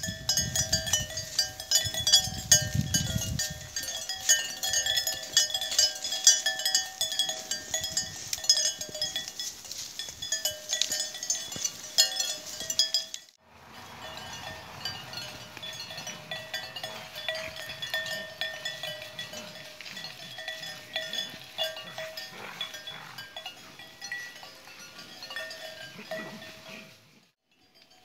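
Bells on grazing cattle clanking unevenly as the cows move and feed, a busy patter of metallic clinks over ringing bell tones.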